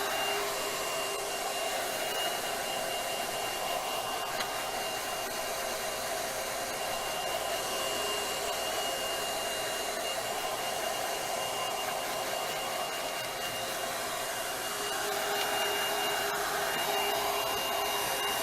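Handheld hair dryer (Trezoro ceramic ionic) running steadily: a rush of blown air with a thin high whine held over it. It gets slightly louder about 15 seconds in.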